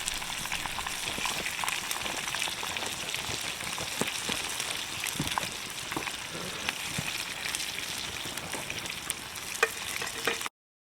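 Chicken frying in hot oil in a cast iron skillet: a steady sizzle with scattered pops, cutting off suddenly near the end.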